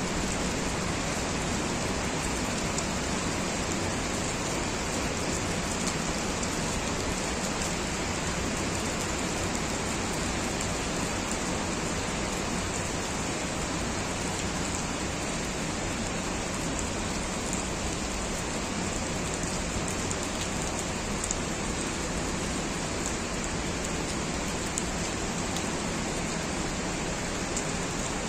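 Steady rain falling, an even hiss of many drops with no letup.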